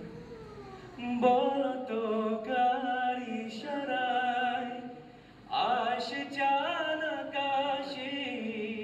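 A man sings a Bengali melody unaccompanied, with long held notes that bend and turn in ornamented runs. He sings in phrases, with a short break about five seconds in.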